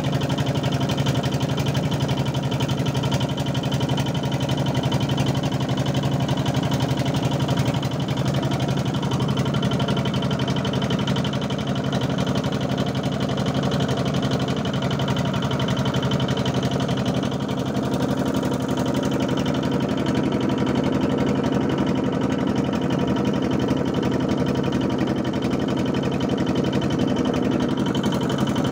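Boat engine running steadily, a constant low drone that holds the same pitch throughout.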